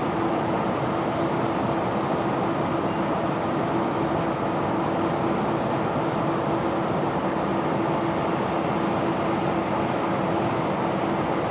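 Heavy unloading machinery running steadily: a constant engine drone with one steady hum, no separate knocks or stone impacts.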